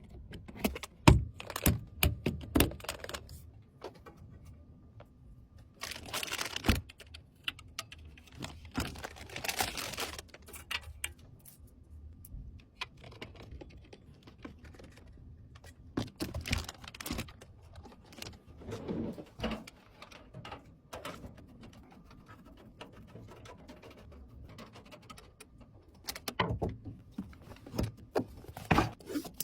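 Irregular clicks, taps and rustling from hands handling PC components during assembly, with quieter spells in the middle and a busier run of clicks near the end.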